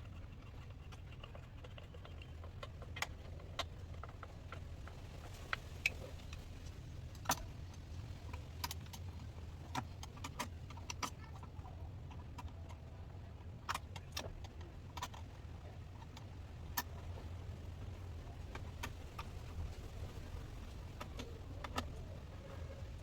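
Irregular metallic clicks and clinks of hand tools tightening the hose clamps on a Range Rover P38's air intake hose, over a steady low hum.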